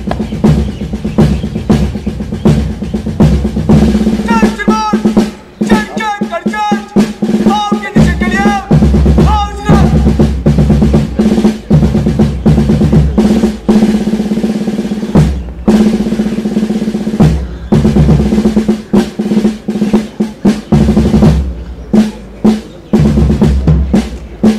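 Drum music: snare drum rolls and bass drum beats played over low held notes. A wavering high-pitched line comes in about four seconds in and fades by about ten seconds.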